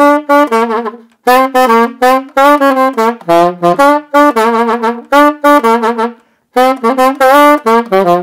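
Alto saxophone played solo, varying a simple melody in three phrases of short, detached notes, with brief breaths between phrases about a second in and about six seconds in.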